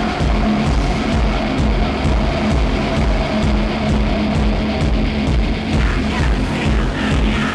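Experimental electronic sound-art piece: a dense, noisy drone over a heavy low end, with a steady low hum and faint clicks on top.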